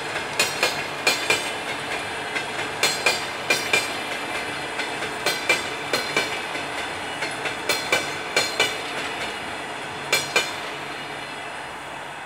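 Wheels of double-deck passenger coaches rolling past, clacking over rail joints in quick pairs over a steady rolling rumble. The clacks stop about ten seconds in, and the rolling noise fades as the last coaches go by.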